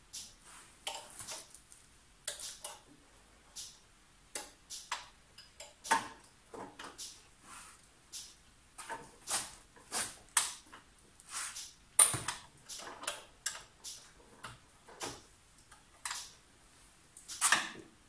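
Hands working at an engine's wiring loom and connectors: irregular clicks, taps and rustles, with a sharp knock about twelve seconds in and a longer rustle near the end.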